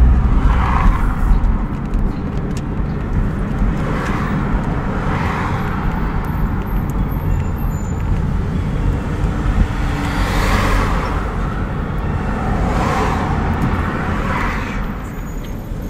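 A car driving in city traffic: a steady low rumble of road and engine noise, with swells of hiss every few seconds.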